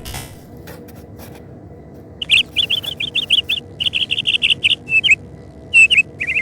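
A bird chirping: rapid runs of short, high chirps in several bursts, starting about two seconds in.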